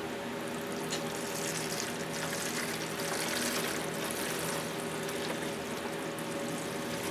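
Distilled water pouring steadily from a plastic gallon jug into a narrow-necked plastic jug.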